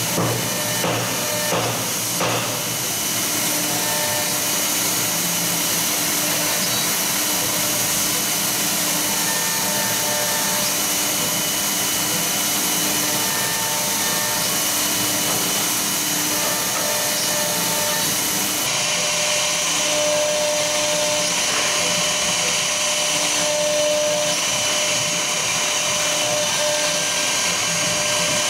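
Three-axis CNC router's air-cooled spindle running at high speed while its bit engraves lettering into a wooden board: a steady high whine with cutting hiss, and short humming tones that come and go as the head moves between strokes. A few sharp knocks in the first couple of seconds.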